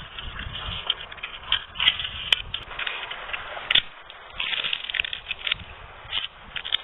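Crispy chicharon bulaklak (deep-fried pork intestines) being bitten and chewed: irregular crunching with sharp crackles.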